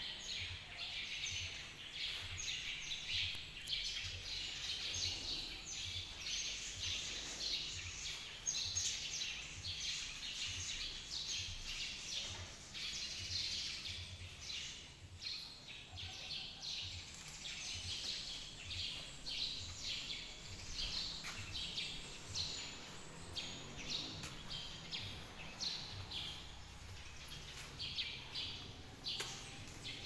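A flock of small birds chirping continuously, many short high chirps overlapping without a break.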